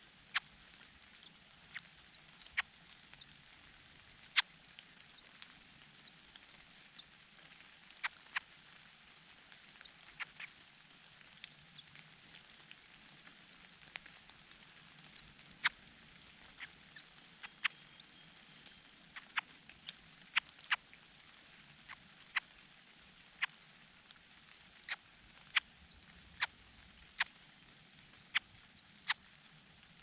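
Cuckoo chick begging: short, high, squeaky calls repeated about two a second, without a break, while it gapes at the host parent for food.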